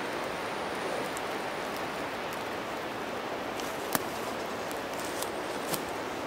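Steady outdoor hiss with a few sharp clicks, the loudest about four seconds in.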